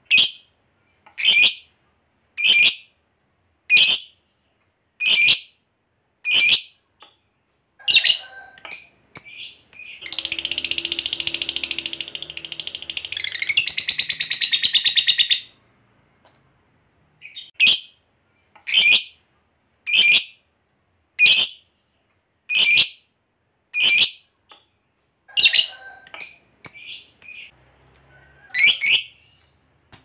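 Masked lovebird calling: sharp, high single chirps about one every second and a quarter, then a long rapid chattering trill (the 'ngekek panjang') lasting about five seconds, then more single and doubled chirps.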